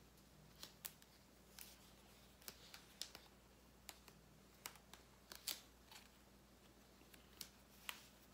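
Faint scattered ticks and crinkles of hands peeling the paper backing off foam craft stickers, against near-silent room tone.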